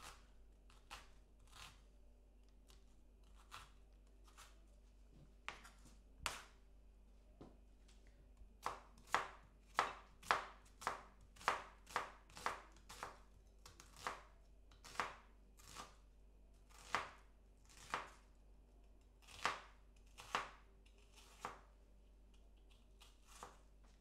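Chef's knife slicing an onion into thin lengthways slices on a cutting board, each cut ending in a sharp knock of the blade on the board. A few scattered cuts at first, then a steady run of about two chops a second that stops shortly before the end.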